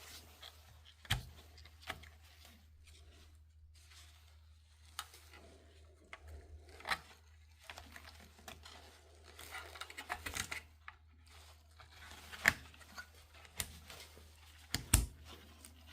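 Irregular clicks and knocks with some brief rustling, as of things being handled, over a steady low hum.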